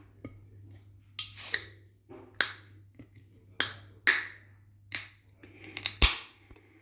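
A person drinking, close up: a series of wet mouth clicks and gulps, each with a short hissy breath, roughly one a second, with a quicker cluster of clicks near the end.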